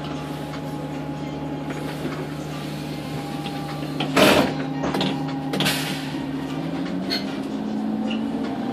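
City bus's diesel engine idling at a stop, with two short, sharp hisses of compressed air about four seconds in as the doors close and the air brakes release; near the end the engine note rises as the bus pulls away.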